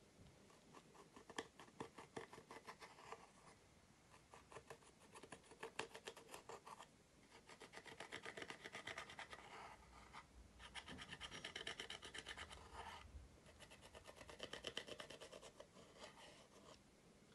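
Metal-tipped tool scraping pressed powder eyeshadow out of the pans of a plastic palette: faint runs of quick rasping strokes, about five of them, with short pauses between.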